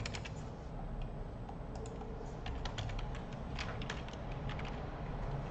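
Typing on a computer keyboard: short, irregular runs of key clicks over a faint low hum.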